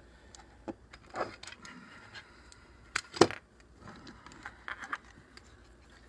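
Small clicks and light metallic clatter from handling a safe lock's keypad and hardware, with one sharp knock about three seconds in.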